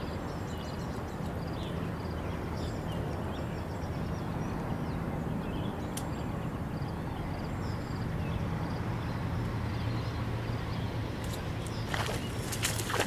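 Steady outdoor background noise with faint, short, high chirps throughout. There is a single click about halfway through, then a cluster of clicks and rustling near the end.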